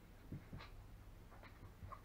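Very quiet: faint rustles and a few soft bumps from a three-week-old longhaired German Shepherd puppy shifting on fleece bedding, with a brief faint squeak near the end.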